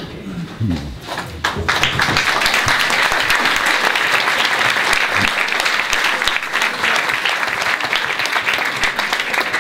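Audience in a packed room applauding, the clapping swelling about a second and a half in and then holding steady and loud.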